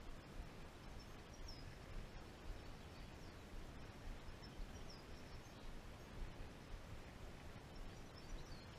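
Faint, steady outdoor background noise with a few short, high bird chirps scattered through it.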